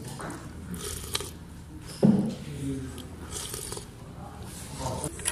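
Slurping udon noodles: two short hissy slurps, about one and three and a half seconds in, with a louder low sound about two seconds in.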